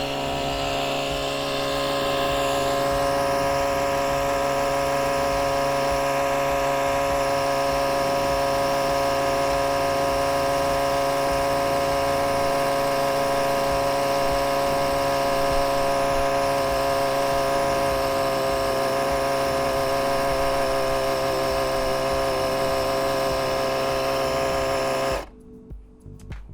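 ETENWOLF Vortex S6 cordless air compressor running steadily with an even, tonal motor whine as it pumps up an RV trailer tire, then cutting off abruptly about 25 seconds in, its automatic stop on reaching the preset 65 psi.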